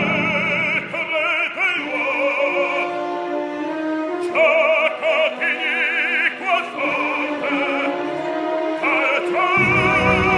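Operatic baritone singing an Italian aria live with orchestra accompaniment, his voice held on long notes with wide vibrato. About nine and a half seconds in, the orchestra's low instruments come in loudly under him.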